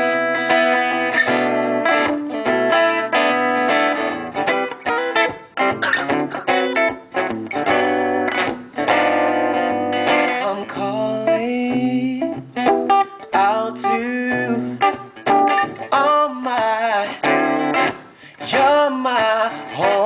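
Acoustic guitar strummed and picked in a steady rhythm, an instrumental break in a live song.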